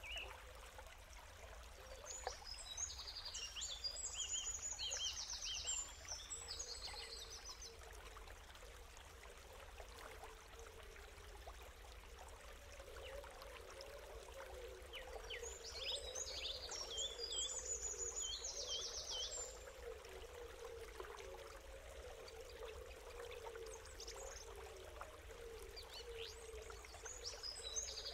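A songbird singing bursts of quick, varied chirping phrases three times, over a steady sound of running water.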